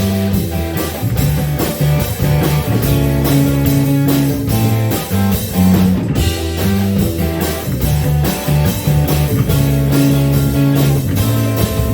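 Live rock band playing the instrumental opening of a song, guitar and drums, just after the count-in and before the vocals come in.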